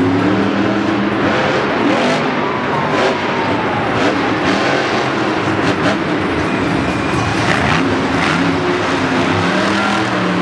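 Monster trucks' supercharged V8 engines running loud in an arena, the engine note rising and falling as they rev, over a steady wash of arena noise.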